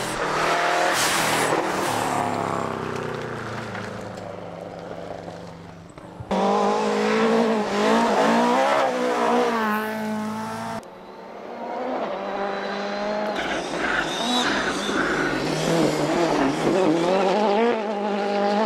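Rally cars at full throttle on a gravel stage, in three cuts. In the first, a Subaru Impreza's engine revs hard and fades as it pulls away. In the second, an engine revs up and down through gear changes. Near the end, another engine grows louder as a car approaches.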